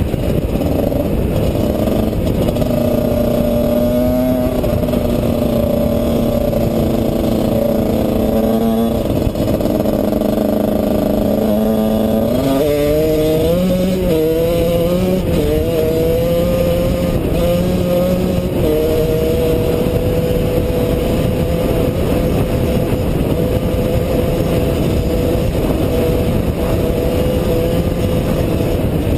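Off-road motorcycle engine running while riding a gravel track, over a steady rumbling noise. Its note wobbles and changes pitch about halfway through, then settles into a steady tone.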